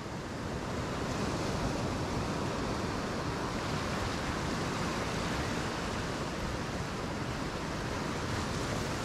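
Ocean surf washing steadily against the shore, an even rushing noise with no distinct breaks.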